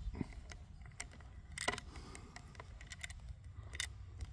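Scattered light metallic clicks and rattles from handling a bolt-action .22 rifle, its bolt and magazine being worked.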